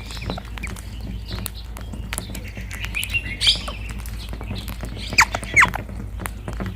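Rose-ringed parakeets calling: a short cluster of chirps about three seconds in, then two sharp calls falling in pitch a little after five seconds, the loudest sounds. Beneath them runs a steady patter of small clicks and taps over a low hum.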